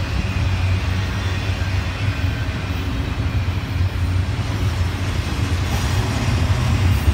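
Double-stack intermodal container cars rolling past, a steady low rumble of wheels on rail.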